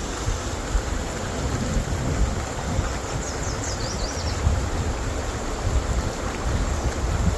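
Wind buffeting the microphone in low, uneven gusts over the steady rush of shallow flowing water. A few faint high chirps come about three seconds in.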